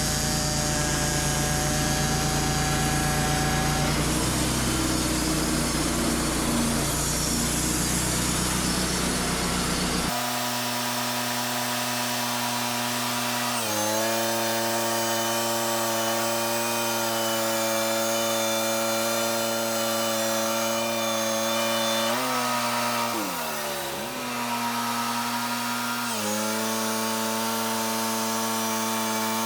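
Wood-Mizer LT35 portable bandsaw mill running, its engine and band blade sawing through a maple log. The engine pitch sags and recovers a couple of times as the cut loads it, most deeply about two-thirds of the way in. The sound changes abruptly about a third of the way in.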